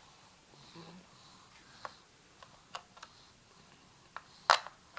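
Small hard plastic clicks and knocks at irregular intervals, about half a dozen, the loudest near the end: a TV remote and its batteries being handled and tapped by a baby.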